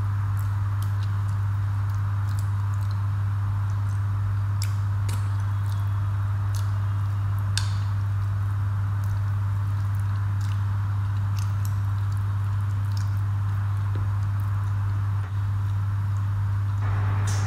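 A steady low hum under soft, wet chewing and scattered small mouth clicks from someone eating rice and fish curry by hand.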